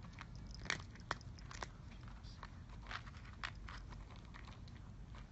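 Domestic cat eating, its chewing heard as sharp crunches at uneven intervals, typical of dry food, over a low steady rumble.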